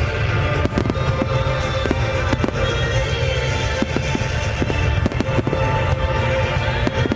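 Fireworks bursting, with many sharp cracks over a low rumble, while music with sustained tones plays alongside.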